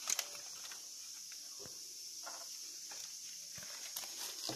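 Light handling noise: a few soft clicks and taps of plastic capsule pieces and a paper toy insert on a tabletop, over a steady faint hiss.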